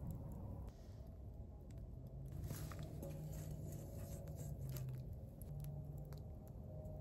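Wood campfire crackling with scattered sharp pops while burning logs are poked and shifted with a stick. A low hum comes and goes in the middle.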